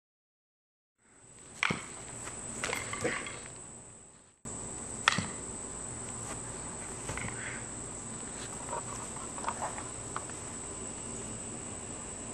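Insects buzzing steadily at a high pitch, fading in after about a second of silence. Over the buzz come scattered sharp thumps and scuffs from two people grappling and stepping on grass, the loudest about a second and a half in and about five seconds in. The sound cuts out and abruptly back in a little before halfway.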